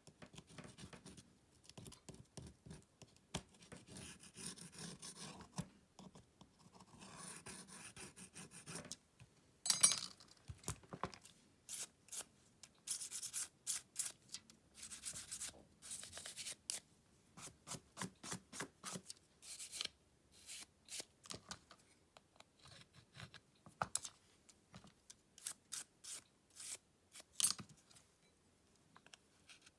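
Small tools and phone parts being handled during smartphone disassembly: many light clicks and taps with spells of soft scraping and rubbing, and one sharper click about ten seconds in.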